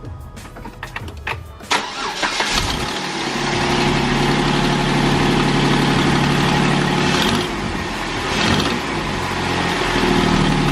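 2008 Jeep Wrangler Unlimited's 3.8-litre V6 clicking a few times, then starting about two seconds in and settling into a steady idle. This is the first start after an alternator replacement, and the electrical whine the old alternator made is gone.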